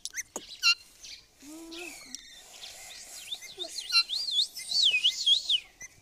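Rose-ringed parakeet calling: a few sharp, short squawks in the first second, then a couple of seconds of rapid warbling chirps that rise and fall in pitch.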